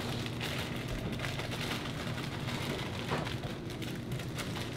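Chopped onion sliding out of a plastic zip-top bag into a slow-cooker crock of liquid: many small, soft ticks as the pieces drop in, over a low steady hum.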